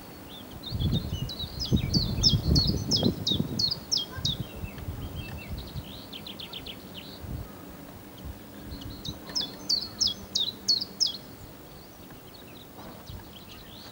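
Songbirds singing: two phrases of quick, repeated high notes, each note sweeping downward, a few seconds apart, with a fainter fast trill between them. Irregular low rumbling gusts during the first few seconds.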